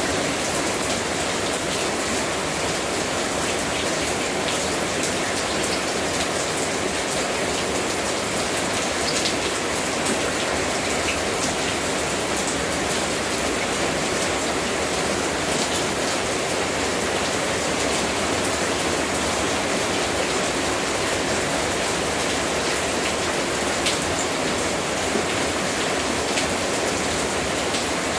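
Steady rain falling: a dense, even hiss with scattered sharper ticks of single drops striking a surface.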